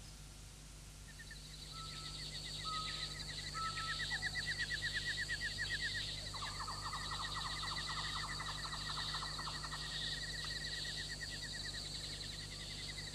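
Birds chirping and trilling: fast, even trills repeated over several seconds, with a buzzier trill in the middle, over steady high chirping.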